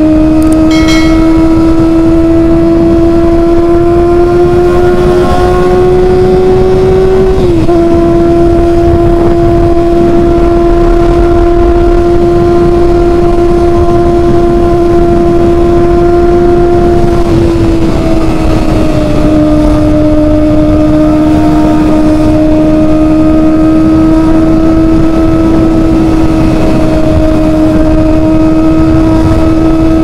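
Kawasaki ZX-25R's 250 cc inline-four running steadily at high revs through an SC Project titanium exhaust while cruising at highway speed, a continuous buzzing drone over wind and road noise. The pitch creeps up, dips briefly about seven seconds in, and settles a little lower about seventeen seconds in as the throttle eases.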